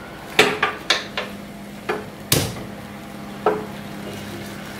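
A run of sharp knocks and clinks of kitchen utensils and dishes being handled, about seven in the first three and a half seconds, the loudest a little over two seconds in, over a faint steady hum.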